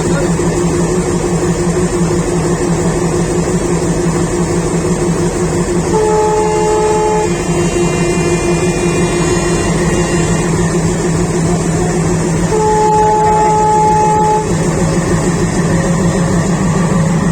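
WDG3A Alco diesel-electric locomotive, with its 16-cylinder ALCO 251 engine, running with a steady low hum, and its air horn sounded twice: a short blast about six seconds in and a longer one about twelve and a half seconds in.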